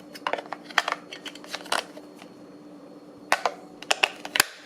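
Batteries being fitted into the plastic battery compartment of an electronic blood pressure monitor: scattered light clicks and rattles, in two clusters, the second near the end.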